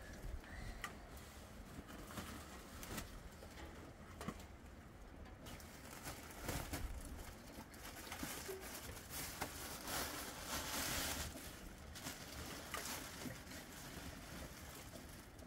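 Plastic bag rustling, with scattered small knocks and clicks as things are handled; the loudest rustle comes about ten seconds in.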